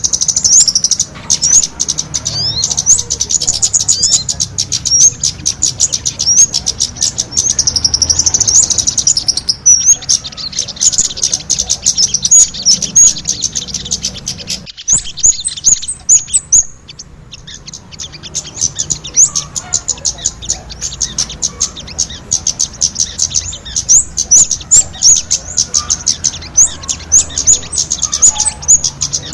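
Bird-lure recording of small songbirds, sogon calls mixed with kemade calls, playing as a dense stream of rapid, high-pitched chirps and trills, many per second. The calling thins out briefly about halfway through, then resumes just as busily.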